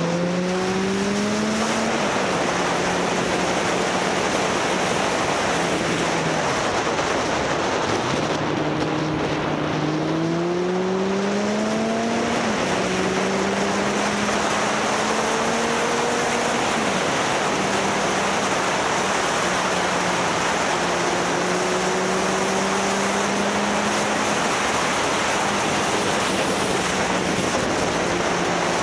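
Motorcycle engine running under heavy wind rush on the microphone. Its pitch climbs as the bike accelerates and drops back a few times at gear changes, then holds fairly steady through the second half.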